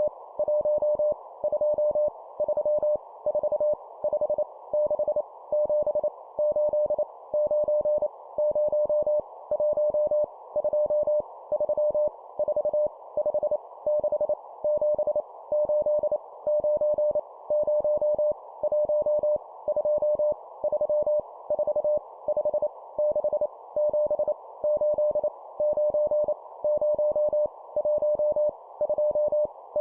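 CW Morse code sending numbers at 25 words per minute: a single steady tone keyed rapidly in dots and dashes, in short groups separated by brief pauses, over a continuous band of hiss.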